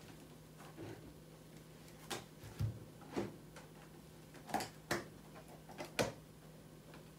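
Vegetables and plastic food containers being handled and set down on a kitchen counter: scattered light knocks and rustles, about eight in all, with the sharpest near the middle and toward the end. A faint steady hum runs underneath.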